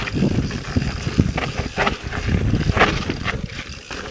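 Mountain bike riding down a rough dirt trail: uneven wind rumble on the microphone with irregular rattles and scrapes from the tyres and bike.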